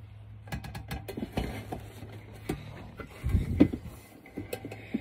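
Handling noise from a phone being moved about and brushing against clothing: scattered light clicks and rustles, with a couple of soft thumps a little past the middle, over a low steady hum.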